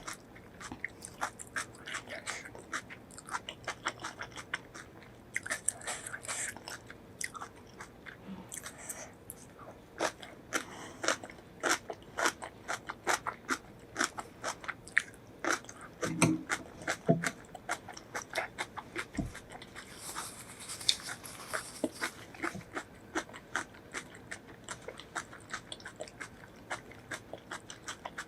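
Close-miked eating sounds: crunchy bites and steady chewing, a dense run of sharp clicks and crackles.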